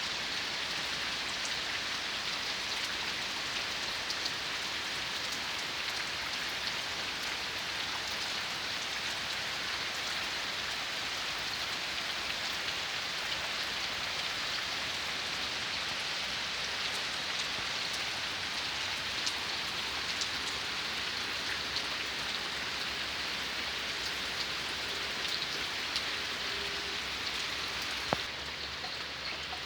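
Steady rain falling, an even hiss with scattered sharper drop ticks. Near the end there is a click, after which the sound turns duller and a little quieter.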